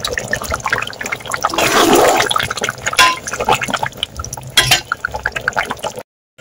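Fish curry boiling hard in a pot, a steady bubbling and popping with a few louder pops. It cuts out abruptly near the end.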